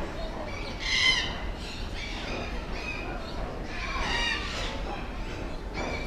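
Parrots squawking in an aviary: harsh, rasping calls, the loudest about a second in and another around four seconds, with shorter squawks between.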